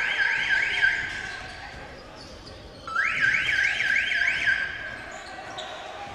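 An electronic alarm sounding in repeated bursts: each a short steady tone followed by a quick run of rising whoops, about six a second, coming back every four seconds or so.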